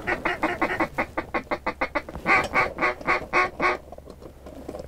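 Mallard hen-style quacking on a duck call. A quick run of short quacks gives way, a little past halfway, to six louder, evenly spaced quacks, and the calling stops about four seconds in.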